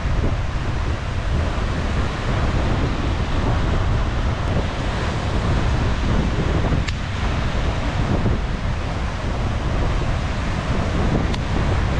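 Steady wind rumbling on the microphone over the wash of surf breaking on the shore.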